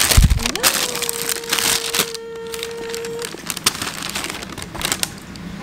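Tissue paper and a padded paper mailer rustling and crinkling as hands pull them out of a cardboard shoebox, with a low thump at the start. A steady held tone runs alongside for about three seconds from half a second in.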